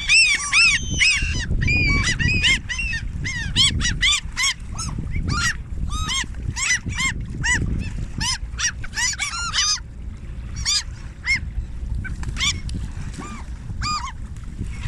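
A flock of geese honking: many short, yapping calls overlapping densely, thinning out after about ten seconds.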